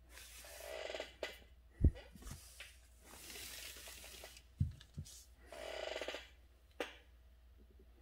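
Handling sounds at a calligraphy desk: three rustling swishes about a second long each, with a sharp dull thump about two seconds in and two more near the middle, plus a few light clicks.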